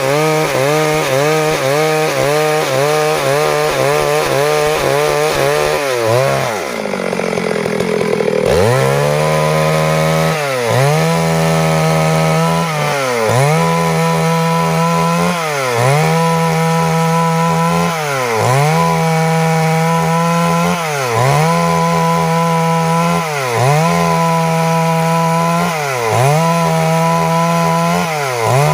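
Stihl MS382 two-stroke chainsaw running at high revs while cutting wood. About six seconds in its engine speed drops sharply and climbs back. After that the pitch dips and recovers in a steady rhythm about every two and a half seconds.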